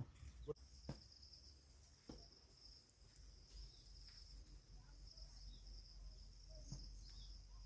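Faint, steady high-pitched chirring of insects, with a few soft ticks.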